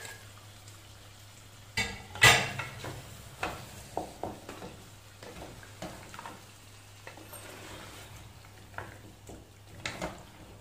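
Wooden spoon stirring and turning heavy pieces of beef trotters in masala in a metal pot: irregular knocks and scrapes against the pot, the loudest about two seconds in, over a faint sizzle of the masala frying.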